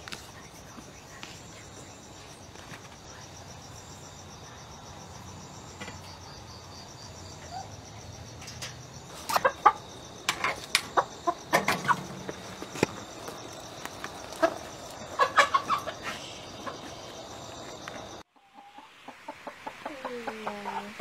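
Battery-caged laying hens over a steady hum, with a run of sharp squawks and clatter in the middle as hens are lifted out of the wire cages. Near the end the sound cuts to hens clucking, with short falling calls.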